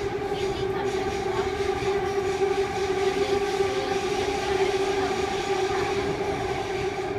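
SkyTrain Canada Line train running through a tunnel, heard from inside the car. A steady motor whine holds at one pitch over the constant rumble of the wheels on the rails.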